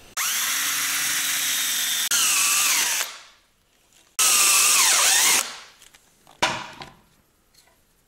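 Cordless drill boring a hole through aluminium bus-bar stock, in two runs. Each run spins up quickly, then its whine drops and wavers as the bit bites into the metal. A short knock follows about six and a half seconds in.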